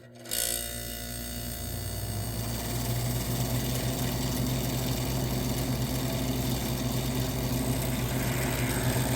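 1978 Gibson Air Sweep window air conditioner starting up on low cool: its Tecumseh AE reciprocating compressor and fans come on suddenly and settle into a steady hum that builds a little over the first couple of seconds. The condenser fan is rubbing against its shroud, an out-of-balance fan.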